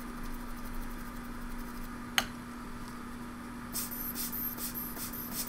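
Circuit board being scrubbed clean after desoldering: a quick run of about five short, scratchy strokes near the end. Before them comes a single sharp click about two seconds in, over a steady low hum.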